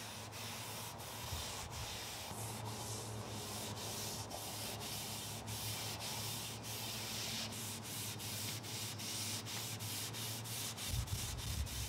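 A cloth rag rubbing oil-based stain along a wooden closet rod, a steady scuffing with faint regular ticks about twice a second over a low hum; it cuts off near the end.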